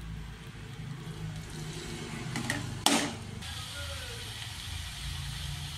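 A steel spatula stirring a stir-fry of greens in a steel kadai, knocking sharply against the metal pan once about three seconds in, after a few lighter clicks, over a steady low hum.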